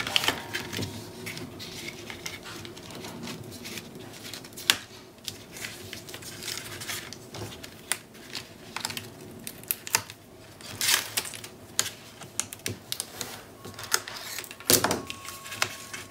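Cardstock strips and paper being handled, slid and pressed down on a cutting mat: irregular light taps, clicks and paper rustles.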